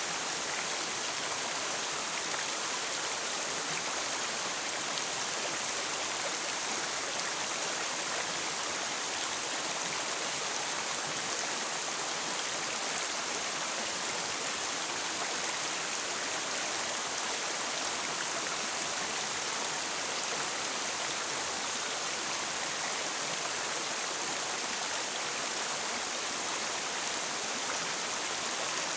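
River water flowing, a steady even rushing without let-up.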